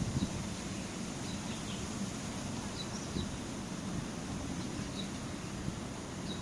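Birds chirping in short, high, scattered calls every second or so, over a steady low outdoor background noise.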